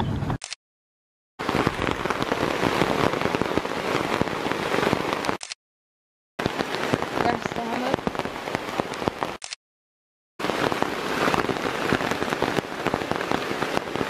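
Heavy rain pattering steadily on a tarp strung over a hammock. The sound is broken three times by short gaps of dead silence where the clips are cut together.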